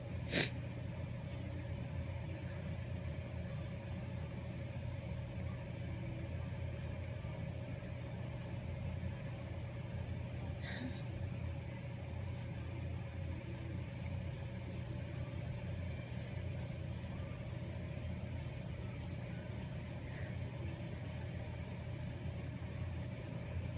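Steady low hum of a car idling, heard inside the cabin, with a faint steady tone over it. A brief sharp sound stands out about half a second in.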